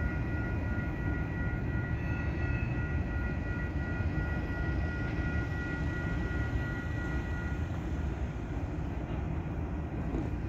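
Train rumbling along street-running track, a steady low rumble with a high whine laid over it that stops about three quarters of the way through.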